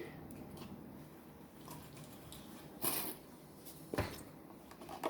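Quiet room with faint handling sounds from the slime-making table: a brief scrape or rustle about three seconds in, and a single knock about a second later.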